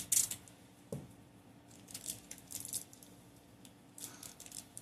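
Short bursts of crinkly, rattly rustling as a cut-open fidget toy is squeezed to push out its gritty filler, with a small thud about a second in.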